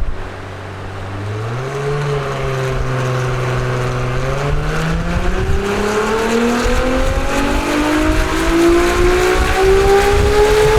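Ferrari 296 GTS twin-turbo V6 through a full Capristo exhaust, under load in a dyno pull. The engine note steps up about a second and a half in, then climbs steadily in pitch as the revs build.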